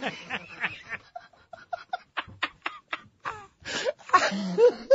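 Men laughing hard: a run of short, breathy laugh pulses that swells near the end into louder, high, wailing laughter.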